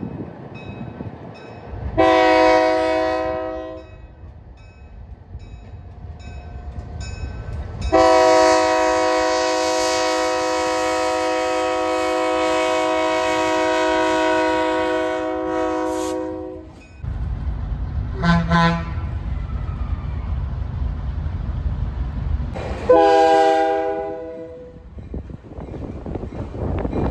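Locomotive multi-chime air horn sounding a chord in four blasts, long, long, short, long, the standard warning pattern for a grade crossing. The second blast is held for about nine seconds. In the second half, under the last two blasts, comes the low rumble of the train running past.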